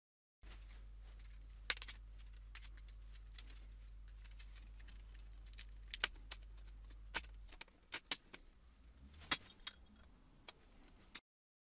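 Sharp clicks and clinks of small hard parts being handled, over a steady low hum that drops away about two-thirds of the way through.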